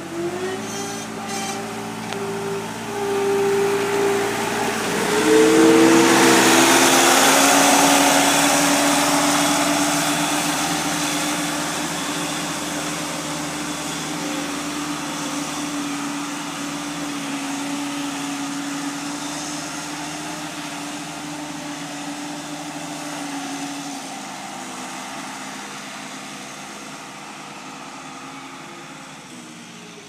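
Case 430 skid steer's diesel engine running as the machine drives past. The engine note wavers and drops around five seconds in, where it is loudest, then holds a steady tone that slowly fades as the skid steer moves away.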